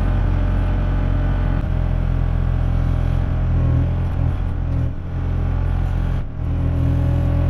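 Kubota KX040 mini excavator's diesel engine running steadily under load as the boom swings and the bucket digs out palmetto roots, with the hydraulics working; the sound dips briefly about six seconds in.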